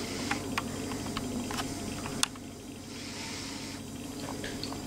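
Cat eating from a plastic bowl, lifting the food to its mouth with a paw: a few irregular small clicks and smacks, with one sharper click a little after two seconds in.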